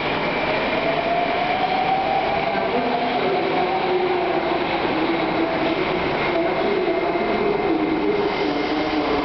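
Oka metro train running through the station: a steady rumble of wheels on rail with a steady high tone and a whine that wavers in pitch.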